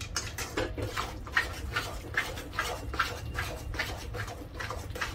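Steel potato masher working thick pav bhaji vegetables and butter in a steel pot, a run of wet squelching strokes, about two to three a second, with the masher knocking the pot.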